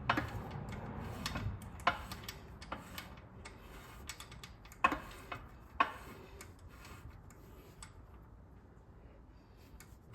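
Ring and pinion gears of a Sterling 10.5 rear axle being turned by hand to roll a gear-marking pattern: irregular metallic clicks and ticks, a few sharper knocks among them, over a low rumble in the first second or so.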